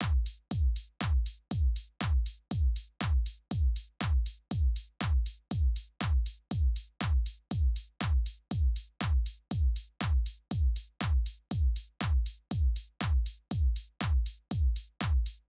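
Background electronic music with a steady, deep kick-drum beat, about two beats a second.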